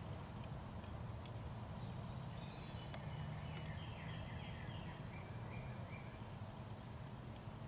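A songbird sings a quick run of short down-slurred notes in the middle of the stretch, over a steady low rumble.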